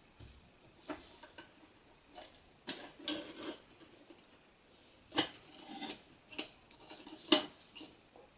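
Aluminium cook pot and lid being handled on an aluminium tray: a string of scattered metal clinks and knocks, the sharpest about seven seconds in.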